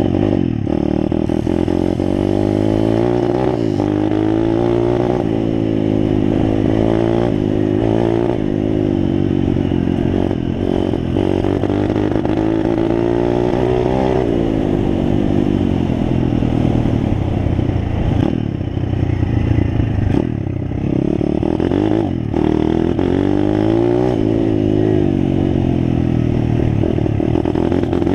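Pit bike engine running under way, its pitch rising and falling over and over with the throttle.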